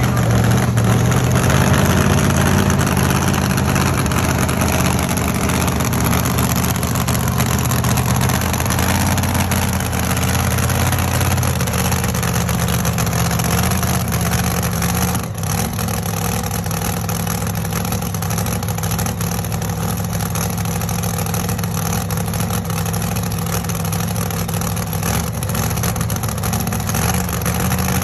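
Supercharged engine of a pickup pulling truck idling loudly at low speed as the truck creeps along, a steady low engine note that eases slightly partway through.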